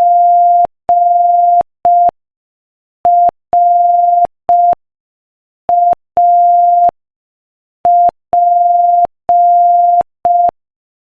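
Morse code sent as a single steady beep tone of about 700 Hz, keyed at 5 words per minute in short dits and long dahs with longer pauses between letters. It spells G, R, A, P.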